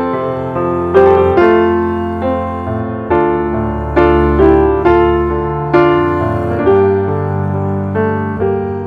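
Background piano music, slow chords struck one after another, each ringing out and fading before the next.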